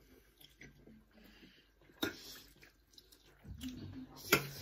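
People chewing mouthfuls of noodles, faint and intermittent, with a sharp click about two seconds in and another near the end.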